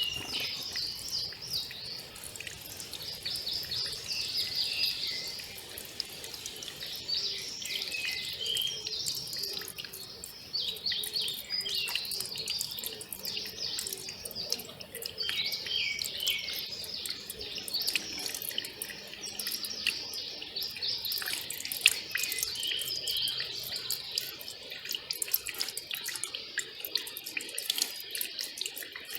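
A mountain valley stream trickling and splashing, with small birds chirping in quick strings of short, high notes.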